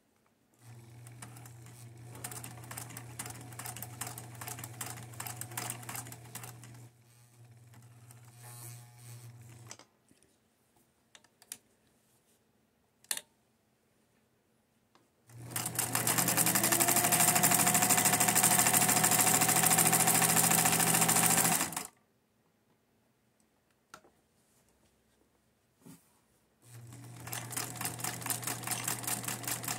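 Bernina Favorit 540 sewing machine stitching zigzag through heavy tapestry fabric in three runs, the middle one much louder, its motor whine rising as it speeds up. Between runs there are short pauses with a few single clicks.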